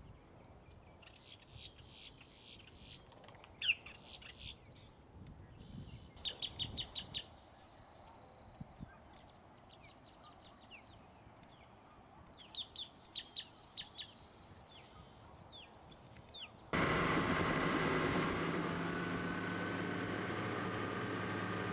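Small birds chirping in quick repeated series. About seventeen seconds in it cuts abruptly to a 250 HP Yamaha VMax four-stroke outboard running steadily under way, with a constant rush of wind and water.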